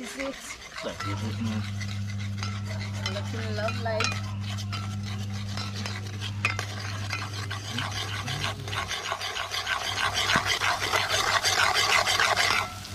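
A metal spoon stirring and scraping in a cast-iron pot of sizzling melted butter, with quick scraping strokes that grow louder toward the end. A low steady hum runs under the first half.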